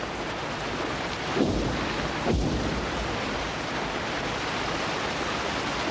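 Steady, even background noise with two low rumbles, about a second and a half and two and a half seconds in.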